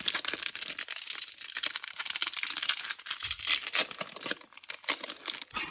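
Foil trading-card pack wrapper being torn open and crinkled by hand, a dense run of crinkling and tearing.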